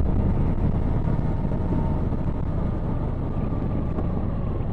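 Steady low rush of wind and engine noise from a Hero XPulse 200 4V single-cylinder motorcycle cruising at about 60 km/h, easing off slightly toward the end.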